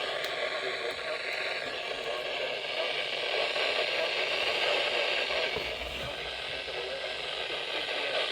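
Steady static hiss on a weather radio receiver, with the bulletin's voice buried under it.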